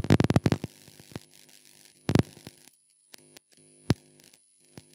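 Computer keyboard and mouse clicks close to the microphone: a quick run of keystrokes at the start, then single clicks about two seconds in, about four seconds in and near the end. A steady electrical hum runs under them.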